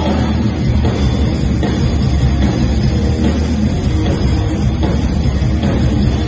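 Live rock band playing loud and without a break: electric guitars over a drum kit.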